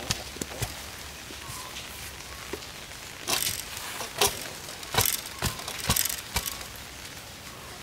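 A run of irregular sharp knocks and cracks, loudest and most frequent in the middle stretch.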